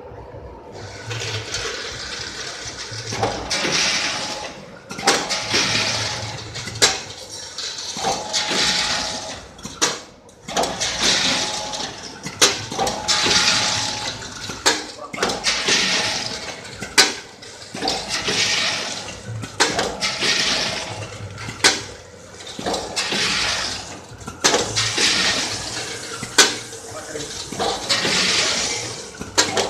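Automatic vertical sachet-packaging machine with a weigher running through its cycles: a swelling hiss and clatter repeating about every two and a half seconds, each cycle marked by sharp clicks.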